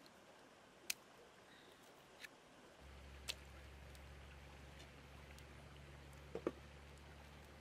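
Near silence: faint background with a few isolated sharp clicks, and a low steady hum that comes in about three seconds in.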